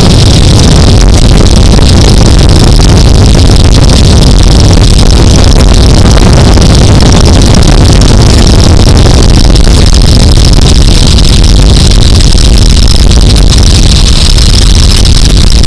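Boeing Stearman biplane's radial engine running steadily in cruise flight, heard from the open cockpit with heavy wind rush over the microphone; loud and unbroken.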